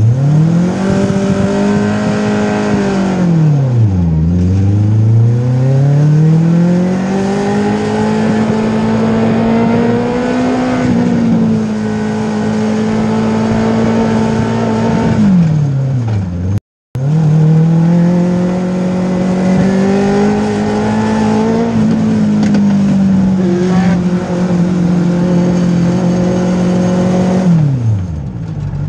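Race car engine heard from inside the cockpit, cruising at part throttle. The revs drop about four seconds in, then climb and hold steady. They fall off again around the middle, where the sound cuts out for a moment. Then they climb, hold, and fall away near the end.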